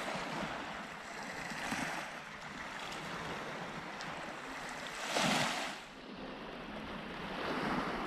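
Small waves of the Black Sea washing up onto a shingle beach, the wash swelling three times, loudest a little after the middle.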